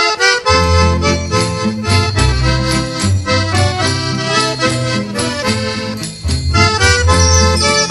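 Instrumental background music: a melody line over a steady, regular bass beat, starting abruptly after a brief silence.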